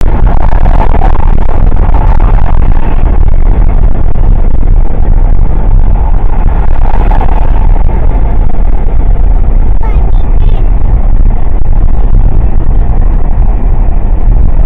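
A car driving at speed, heard from inside the cabin: loud, steady road and wind noise with a heavy low rumble.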